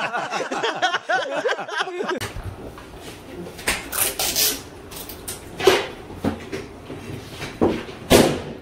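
A man talking briefly, then a few short, sharp knocks and rustles of balloons being handled, ending with a sudden bang of a balloon bursting near the end.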